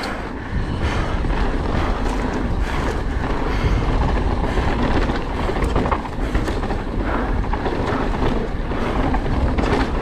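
Mountain bike ridden down a rough trail: a continuous rolling rumble of tyres over dirt and rocks, peppered with small clatters and knocks as the bike takes bumps, with wind noise on the microphone.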